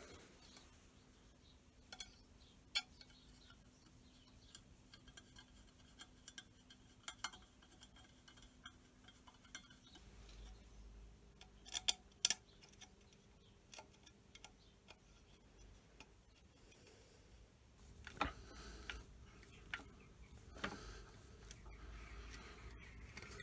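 Faint, scattered metallic clicks and clinks of small pins being handled and pressed into a brass nameplate on a lathe headstock casting, with a sharper cluster of clicks about twelve seconds in.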